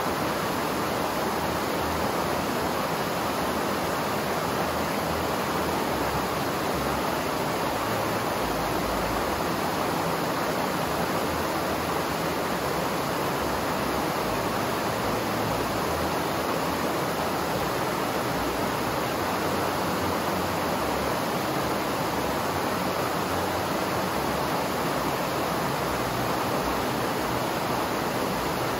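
Steady rush of running water, holding an even level throughout with no splashes or other events standing out.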